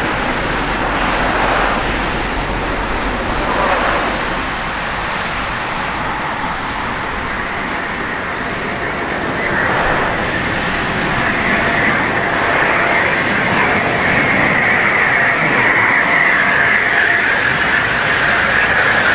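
Eurofighter Typhoon's twin turbofan engines on approach to land, a steady jet roar that grows louder as the aircraft nears. A high whine comes in about halfway and strengthens, sinking slightly in pitch near the end.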